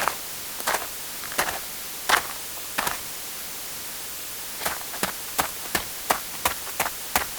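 Footsteps: walking steps, about one and a half a second, for the first three seconds, then after a pause of about a second and a half, quicker steps, about two and a half a second, as in running. A steady hiss lies under them.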